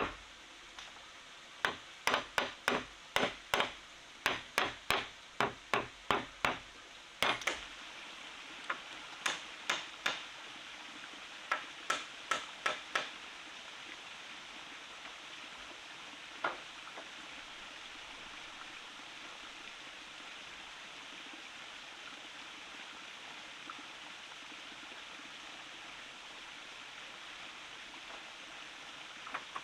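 Repeated tool strikes on wood, about two a second, then a few sparser strikes that die out by the middle. A stream runs steadily underneath and carries on alone after the strikes stop.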